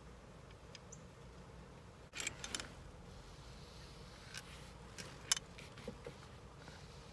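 2010 Nissan Versa seat belt retractor worked by hand, its webbing pulled out and let back in, with its mechanism clicking and rattling: a cluster about two seconds in, then single sharp clicks over the next few seconds. The rebuilt retractor's re-wound spring now draws the belt back in.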